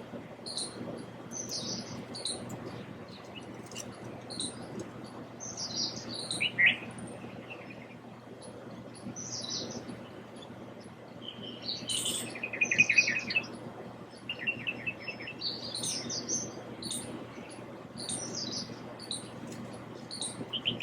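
Morning chorus of several small birds chirping and calling from many directions, with a few short rapid trills a little past the middle.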